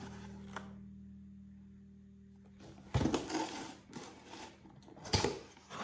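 Background music dies away, then a cardboard box is set down on a wooden surface with a knock and handled, with rustling and a second knock near the end.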